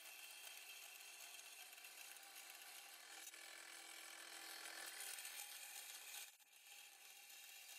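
Vertical bandsaw running faint and steady as it cuts thin sheet steel, with a brief drop in the sound about six seconds in.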